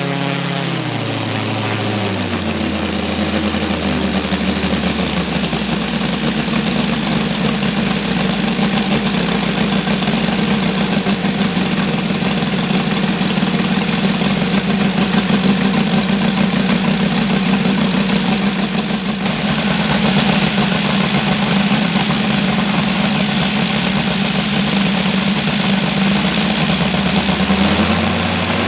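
OS FR5-300 five-cylinder radial model aircraft engine throttling back from high revs over the first couple of seconds, then idling steadily, and starting to rev up again at the very end.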